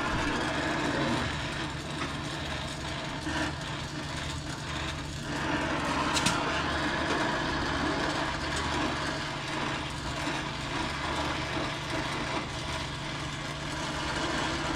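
A motor running steadily with a low, even hum, plus a brief tick about six seconds in.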